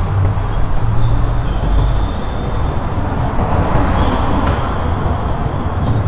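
Steady outdoor background noise: a low rumble with a hiss over it.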